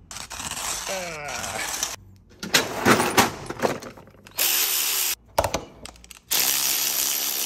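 Metal tools clattering in a tool-chest drawer. Then a cordless power driver runs briefly, stops, and starts again about six seconds in, running steadily to turn the shaft of a Saint Anthony MillWright hand coffee grinder in place of its crank.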